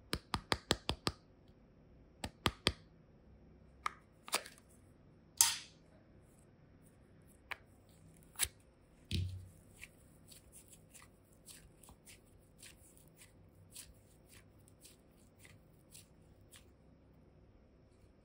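A quick run of sharp plastic clicks as a small flower-shaped plastic box is handled and opened, then a few more single clicks, a short hiss and a low thump. After that, faint soft sticky crackles as modelling clay is squeezed and kneaded by hand.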